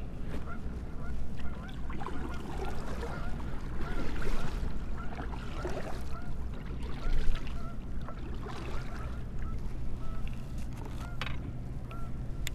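A flock of birds calling over and over in short, repeated calls, over a steady low rumble.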